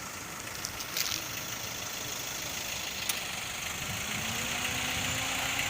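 Steady hiss with a few faint clicks. About four seconds in, an engine hum rises a little in pitch and then holds steady.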